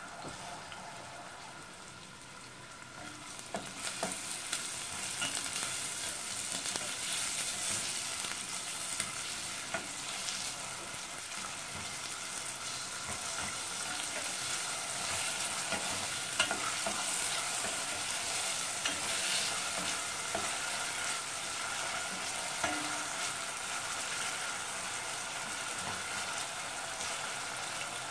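Chopped onion sizzling in hot olive oil in a stainless steel pot as it softens, stirred with a wooden spoon. The sizzle grows louder about three seconds in and then runs steadily, with scattered scrapes and knocks from the spoon.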